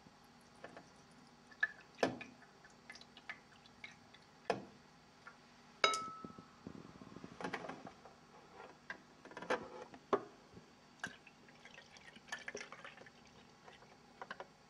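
Glass jugs, a strainer and glass bowls clinking and knocking on a wooden counter while carrot juice is poured through the strainer, with a soft trickle of liquid. One clink about six seconds in rings clearly like glass.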